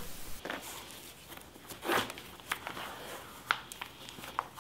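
Shoelaces being worked through the hooks of suede hiking boots and tied: soft rustling and brushing of the laces with a few short, sharp little ticks, over a low hiss.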